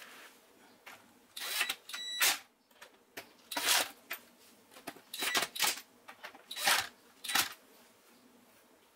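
A series of short rustling and clicking handling noises, about seven separate bursts with quiet gaps, as the replacement TV power supply board is handled and fitted into the set.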